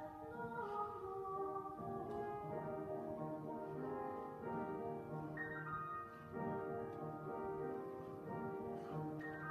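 Music in slow, held chords, the notes changing every second or two.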